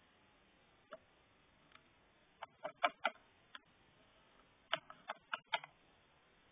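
Small hard-plastic toy figure clicking and tapping against plastic toy furniture: a single click, then two quick clusters of several sharp clicks about two and a half and five seconds in.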